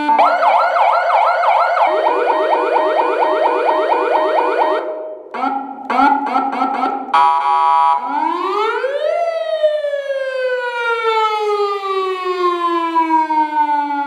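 Aosen PS-940MP3 400 W electronic siren amplifier sounding through two horn speakers, switched through several siren tones: a fast warbling tone for a few seconds, a brief break, a run of short pulsed beeps, then a long wail that rises for about a second and falls slowly.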